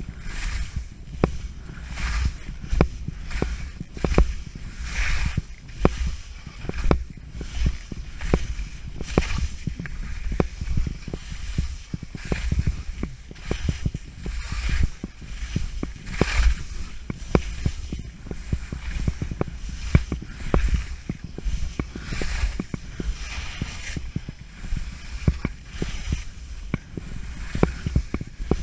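Skis scraping and hissing through soft, chopped-up spring snow in repeated turns, heard from a camera worn by the skier, with frequent sharp knocks and a low wind rumble on the microphone.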